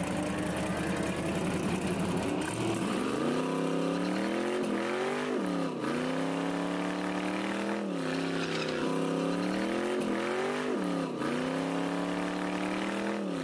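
Car engine revving hard during a burnout with a spinning rear tyre. The engine's pitch creeps up, then sags sharply and climbs back four times, with a hiss of tyre noise over it.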